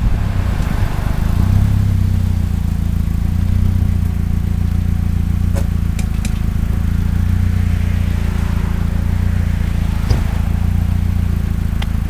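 Volkswagen Scirocco 16V's four-cylinder engine idling steadily as the car comes to a stop, heard from outside the car beside the driver's door. There is a light hiss of road and wind noise at first, and a few faint clicks around the middle and near the end.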